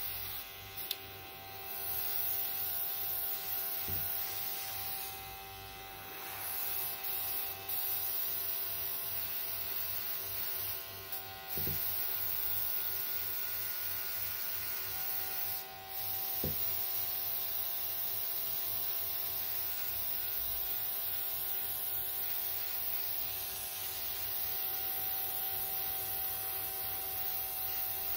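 Small airbrush compressor humming steadily while the airbrush hisses, spraying mica in passes over a bath bomb; the sound dips briefly a few times.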